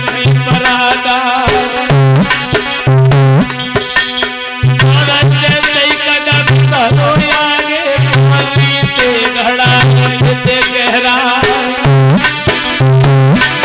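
Instrumental Indian folk music: a hand drum of the tabla or dholak kind keeps a steady rhythm with deep bass strokes about once a second, under a wavering melodic instrument line.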